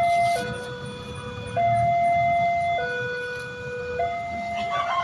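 Railway level-crossing warning alarm sounding a two-tone electronic signal, a higher and a lower pitch alternating about every second and a quarter, warning that a train is approaching.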